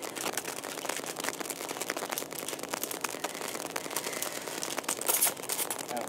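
Small plastic clicks and rattles of a RAM stick being worked in and out of a motherboard memory slot, with a louder scraping click about five seconds in.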